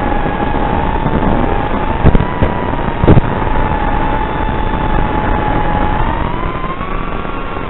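FPV quadcopter's brushless motors whining steadily over a rush of air noise, the pitch rising near the end as the throttle goes up. Two brief loud knocks come about two and three seconds in.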